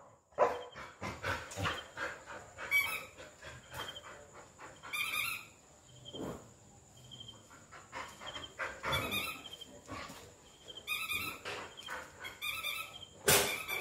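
A dog whining in short, high-pitched cries in about five bouts, eager for a hidden toy, with a sharp knock near the end.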